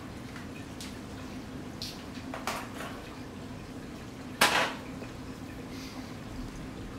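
A few light clicks and clatters of objects being handled, then one sharper, louder knock about four and a half seconds in, over a steady low hum.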